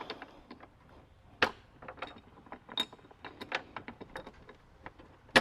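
Jeep Wrangler hood being lowered onto an aluminum pin hood latch: scattered light clicks and taps, then one sharp knock about five seconds in. The latch is out of alignment, so the pin does not go into its hole.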